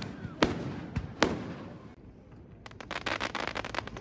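Aerial fireworks bursting: three sharp bangs in the first second and a half, each trailing off in an echo, then a dense run of crackling from about two-thirds of the way in.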